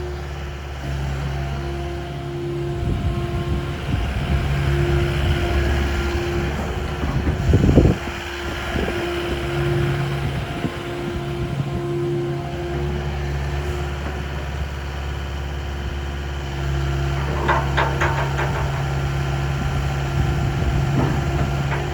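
Kubota KX080 midi excavator's diesel engine idling steadily, with a brief knock about a third of the way in and a few clicks near the end.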